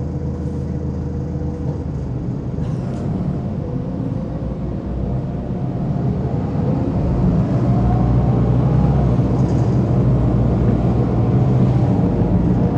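Inside a moving bus: the engine and road noise make a heavy, low rumble. From about halfway through it grows louder and the engine note rises, as the bus picks up speed. A few faint rattles sound now and then.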